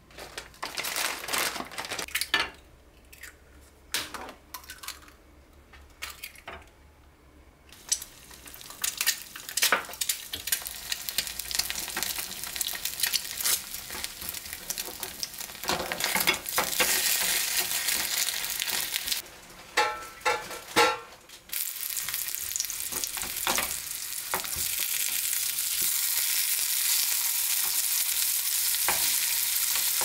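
An egg and then meat patties sizzling in a nonstick frying pan, with a spatula scraping and pushing them. The first several seconds hold only scattered clicks and knocks of things handled on a counter. The sizzling builds, stops briefly about two-thirds through, and returns louder and steady.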